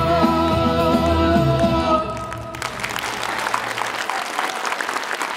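A girl's solo voice holds the song's final note with vibrato over instrumental accompaniment, ending about two seconds in. Audience applause then takes over as the last low chord of the accompaniment fades.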